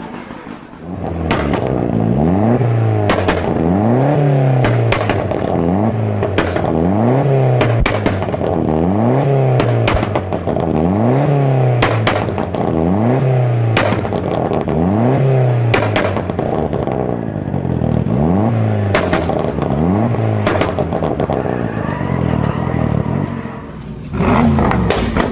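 Car engine revved over and over in quick blips, about one every second and a half, the pitch rising and falling each time, with sharp exhaust pops and cracks as the revs drop. After a short lull near the end it revs again with a loud bang.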